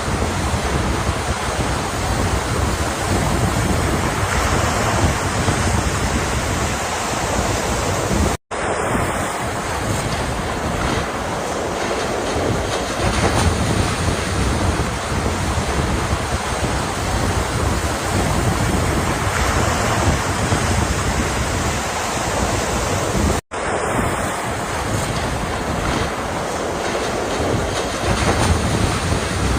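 Ocean surf: a steady, dense rush of breaking waves. The sound drops out for an instant twice, about a third of the way in and again about three-quarters of the way through.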